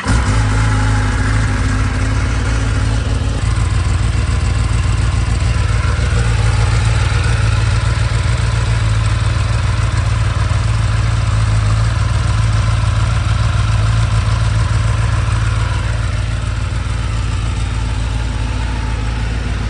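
2024 Kawasaki ZX-10R's 998 cc inline-four engine idling steadily, run cold to warm it up.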